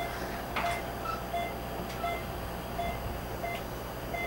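Short electronic beeps repeating at a steady pace, about one every 0.7 seconds, with a higher-pitched beep interleaved, typical of a patient monitor beeping during a colonoscopy. Low equipment hum underneath.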